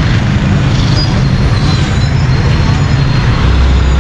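Street traffic noise in a crowded road: motorbike, auto-rickshaw and car engines running, with a steady low hum. A deeper rumble sets in near the end.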